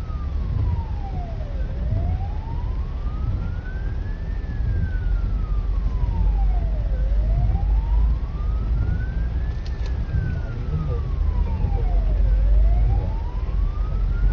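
Hong Kong Fire Services ambulance siren in a slow wail, its pitch rising and falling about every five seconds. It is heard from inside a following car, over the car's steady low cabin rumble, with one brief click about ten seconds in.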